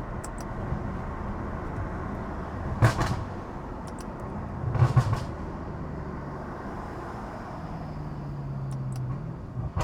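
BMW F90 M5's twin-turbo V8, fitted with front-mount intakes and a catless aftermarket exhaust, running steadily while driving. It has two brief thumps about three and five seconds in, and its engine tone grows stronger near the end.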